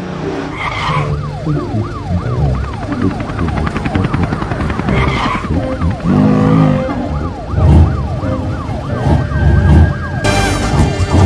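Cartoon fire-engine siren in a fast yelp, rising and falling about three times a second over a low rumble. It stops shortly before the end, when a louder, fuller sound comes in.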